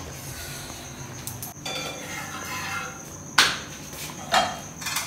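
Steel kitchen utensils clanking against a pan: two sharp metallic knocks about a second apart, the first the loudest. Before them, a paratha sizzles briefly on the hot tawa.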